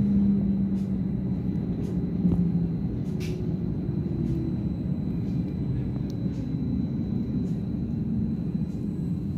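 Stadler Flirt electric multiple unit heard from inside the carriage while running: a steady low rumble of wheels on rail with a motor hum that slowly drops in pitch as the train slows, and scattered light clicks.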